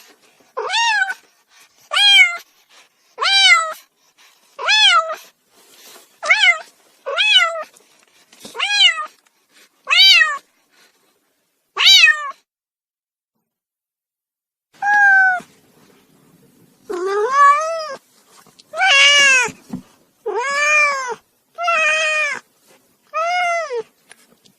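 Domestic cat meowing over and over: a run of about ten short meows, each a little over a second apart. After a pause of nearly three seconds comes a run of about six longer, drawn-out meows.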